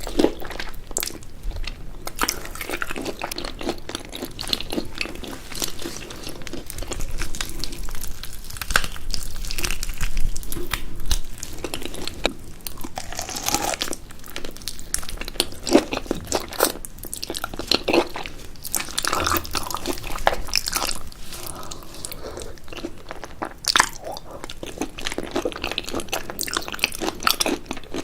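A person eating soy-sauce-marinated giant shrimp close to the microphone: irregular crunching bites and chewing.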